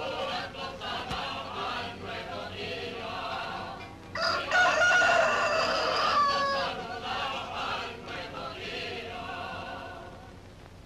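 A rooster crowing once, a loud call of about three seconds starting about four seconds in, over softer choral music.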